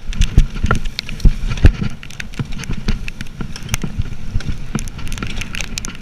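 Gravel bike riding fast over a rough grassy track, picked up by an action camera on the bike or rider: a steady rumble of wind and tyres with frequent sharp rattles and knocks from the bike, the loudest in the first two seconds.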